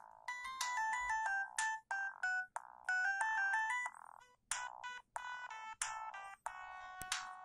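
Siemens CF62 mobile phone playing a polyphonic ringtone: a quick electronic melody of short stepping notes with several notes sounding at once. About four and a half seconds in there is a brief pause, and the tune goes on with fuller, held chords.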